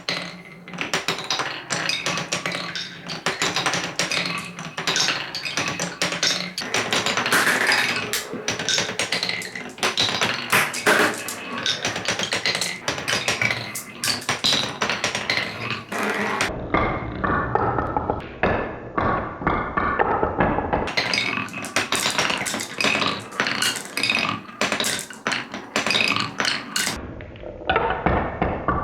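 Marbles running down a wooden stair-step marble run, a dense, irregular clatter of clicks and knocks as they drop from step to step and roll through the wooden turns. About halfway through the sound turns duller.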